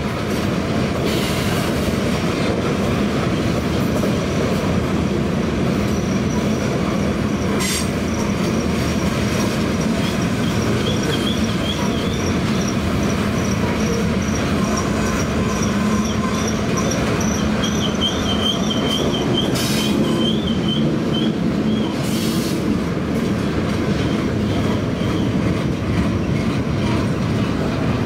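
Freight cars of a passing train rolling by, a steady rumble of wheels on rail. A high, thin wheel squeal comes and goes through the middle stretch, and a few sharp clicks stand out.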